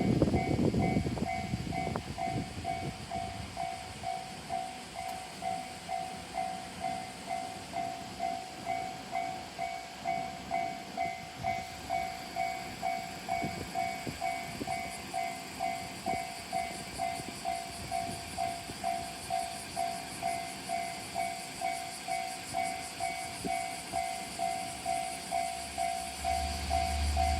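The 1500-series diesel railcar's rumble fades away in the first couple of seconds while a level-crossing warning bell rings on steadily, its tone repeating evenly a little more than once a second. A low hum comes in near the end.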